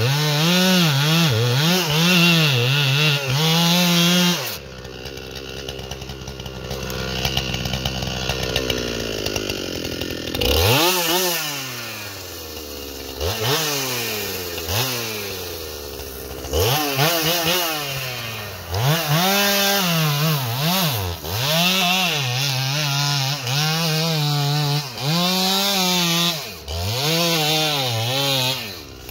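Ported Husqvarna 395XP chainsaw with a 36-inch bar cutting into a big tree trunk, its engine pitch dipping and recovering under load. About four seconds in it drops to a low idle for several seconds, is then revved in several quick blips, and cuts again for about ten seconds before dropping back near the end.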